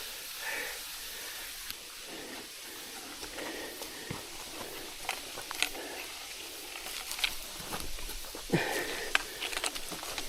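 Scrapes, knocks and rustling of a hiker clambering up a wet rock face with a rope, scattered short sounds over a steady hiss.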